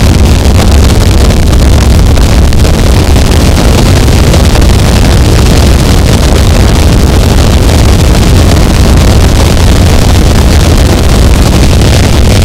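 Harsh noise wall: a loud, unchanging wall of dense, crunching distorted noise, heaviest in the deep low end.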